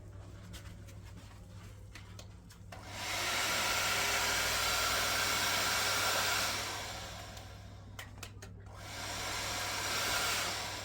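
Water spraying from a shower head fed by a newly set-up water heater. It is a steady rushing hiss that starts about three seconds in, stops after about three and a half seconds, and comes on again briefly near the end, over a low steady hum.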